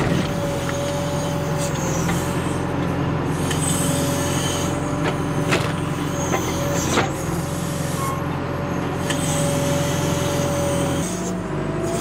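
John Deere 310SE backhoe's diesel engine running steadily under load, with a steady whine, as a homemade wedge splitter on its dipper arm is forced through an oak round. A few sharp cracks sound as the oak pops and splits.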